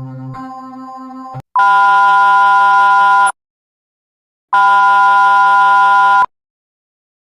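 The tail of a low, pulsing electronic drone, then two loud, harsh buzzer-like alarm blasts of the same pitch. Each lasts about a second and a half, with a second of silence between them. It is the sound of an emergency alert alarm.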